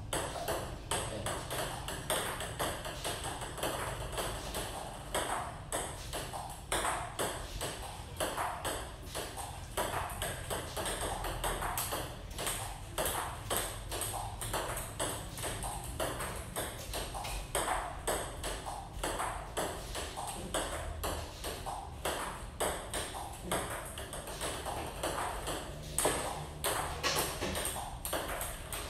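Table tennis ball in a continuous rally, clicking off the bats and bouncing on the table in a quick, even run of sharp ticks, a few a second.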